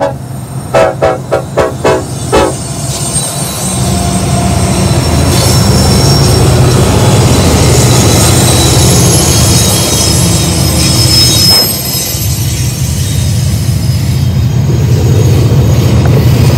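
Union Pacific freight locomotive's horn sounding about six short toots in the first two and a half seconds. Then the diesel engines of the lead locomotives rumble past close by, with high-pitched wheel squeal, as the train rolls on into a line of freight cars.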